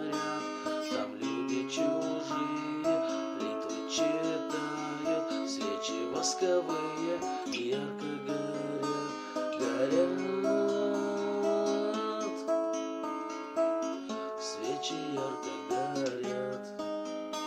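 Acoustic guitar music: an instrumental passage of plucked and strummed chords, with no singing.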